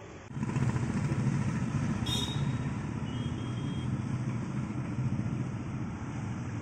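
A motor vehicle's engine running with a steady low rumble, starting suddenly just after the beginning. A brief click about two seconds in.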